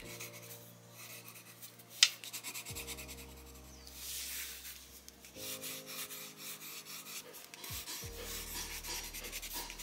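Neon pink Caran d'Ache Maxi Fluo coloured pencil scratching across watercolour paper in quick short strokes, with one sharp tap about two seconds in. Soft background music with slow chord changes underneath.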